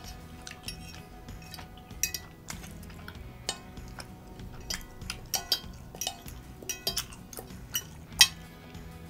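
A metal spoon and fork scraping and clinking against a ceramic plate, gathering up the last of the sauce, with many sharp clinks and the loudest one near the end.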